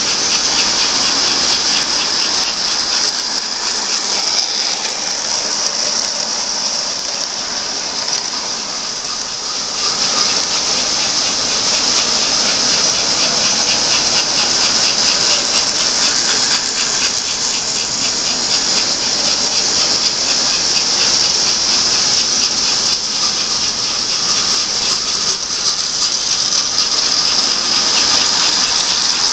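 Electric toy trains running on three-rail tinplate track: a steady high whirring of motors and wheels, with a fast, fine clicking throughout.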